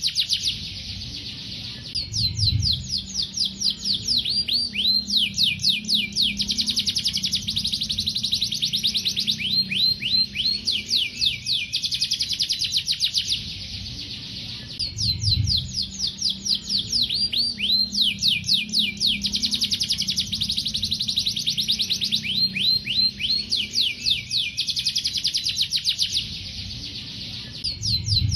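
Domestic canary singing long, fast trills of rapidly repeated high down-sweeping notes, run together into long phrases broken by short pauses.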